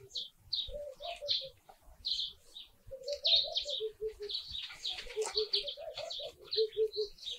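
Wild birds calling: many quick high chirps, and a lower call of short cooing notes repeated in runs of three to five.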